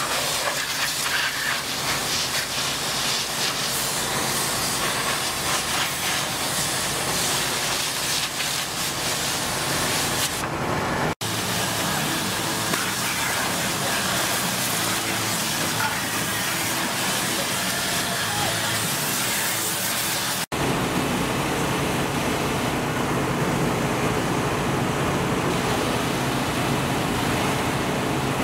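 High-pressure washers blasting water onto metal equipment: a steady, loud hiss of spray, in three clips cut together. A low rumble joins in the last section.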